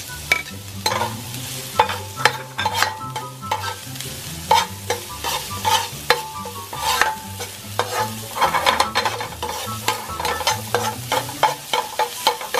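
Minced garlic, ginger and chopped shallots sizzling in hot oil in a wok while being sautéed to release their aroma. A metal ladle scrapes and clicks against the wok again and again as they are stirred.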